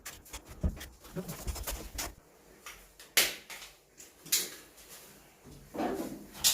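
Scattered knocks and clatter of handling work, with sharp strikes about three seconds in, again a second later, and near the end.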